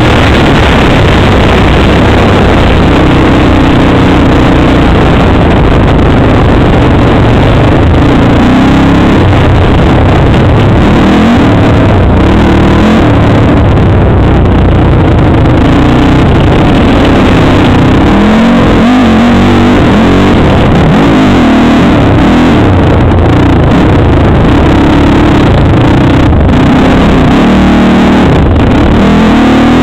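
Z400 quad's engine revving up and down repeatedly while riding, loud and close, over a constant rumble of wind and tyre noise.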